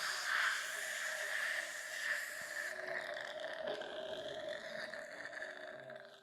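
Dental treatment-room equipment running: a steady whine under a loud hiss of spray or suction. The hiss drops away about three seconds in, and the whine fades out near the end.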